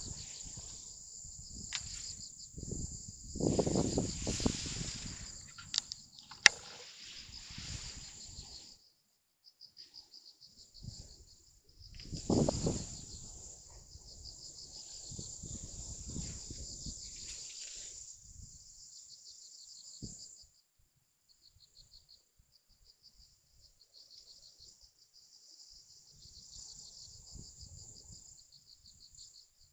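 Crickets chirring in a steady, high, pulsing trill by the water. Two louder, low, noisy stretches break in about four and twelve seconds in, with a sharp click at about six and a half seconds.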